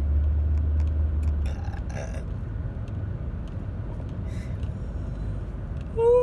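Car cabin road and engine rumble while driving, the low hum dropping off about a second and a half in. Right at the end a loud, steady-pitched belch begins.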